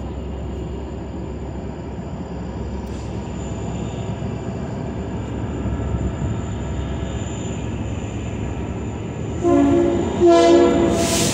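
Approaching diesel locomotives with a steady low engine rumble. About nine and a half seconds in, the lead locomotive's air horn sounds a short blast and then a longer, louder one.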